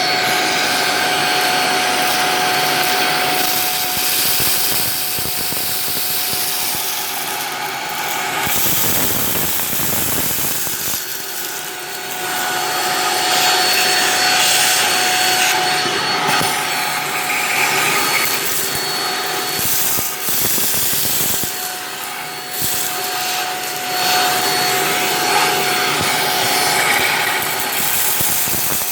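Bagless upright cyclone vacuum cleaner running with a steady motor whine while it sucks up dry rice that hisses and rattles through the nozzle into the bin. The whine drops away for a few seconds about a third of the way in, then returns.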